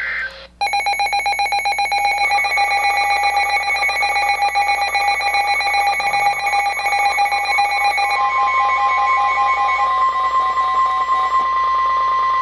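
Electronic weather-alert alarm beeping in fast pulses. About eight seconds in, a steady single-pitch alert tone starts, the NOAA Weather Radio warning alarm that signals a new warning is about to be read.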